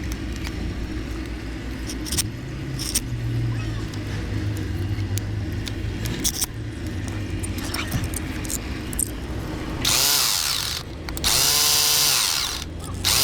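A power tool's motor running in short loud bursts near the end, spinning up and down, over a steady low machine hum with scattered clicks.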